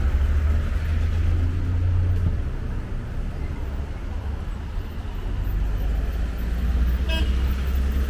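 Cars driving past on the bridge roadway close by, a low rumble that swells as each one passes, with a short horn toot about seven seconds in.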